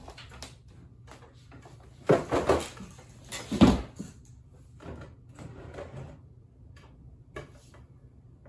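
Knocks and scrapes of a wooden chair and desk being handled as someone pulls up and sits down, in two loud bouts about two and three and a half seconds in, with lighter clicks and taps between and after.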